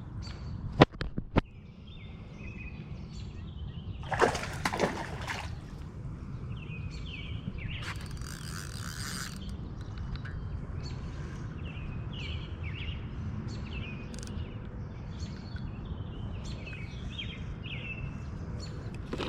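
Small birds chirping repeatedly over a steady low rumble. There are two sharp knocks about a second in, and two short bursts of noise about four and eight seconds in.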